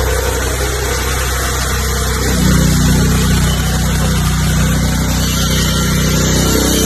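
Diesel engine of a combined generator and welding machine running steadily with a low, even hum.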